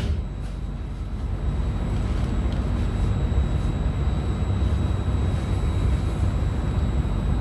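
Steady low rumble and hum inside the passenger car of a double-decker regional train while it stands at a station platform, with a faint steady high-pitched whine.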